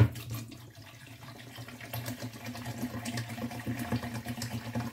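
Sparkling water poured from a plastic bottle into a glass electric kettle: a brief knock at the start, then a steady splashing pour that grows slowly louder as the kettle fills.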